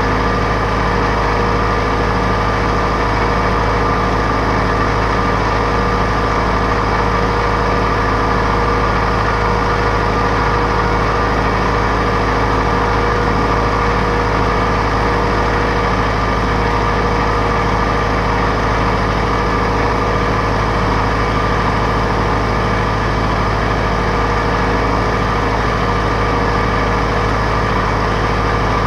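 John Deere 4066R compact tractor's diesel engine running steadily, with an even hum that does not change in speed or loudness.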